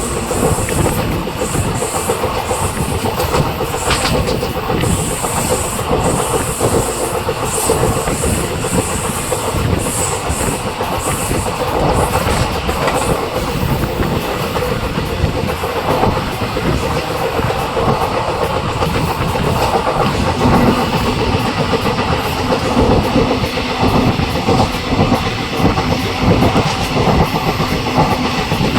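Passenger train running along the track, its wheels rumbling and clattering on the rails in a loud, steady run.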